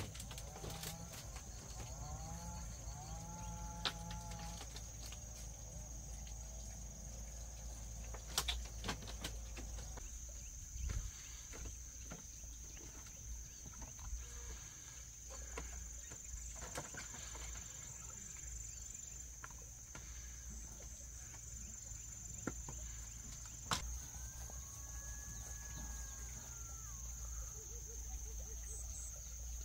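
A steady high insect drone runs throughout. A farm animal calls a few times in the first few seconds and once more about 25 seconds in, and a handful of sharp knocks are scattered through.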